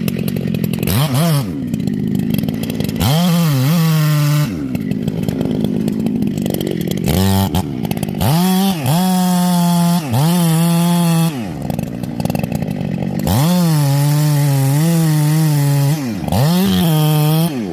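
Husqvarna two-stroke chainsaw revving up and down: about five times it climbs to full throttle and holds there for one to three seconds while cutting into a big tree trunk, then drops back toward idle in between.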